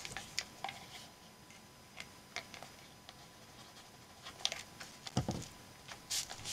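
Hands handling paper and a glue stick on a journal page: light paper rustles and small clicks, with a soft thump about five seconds in.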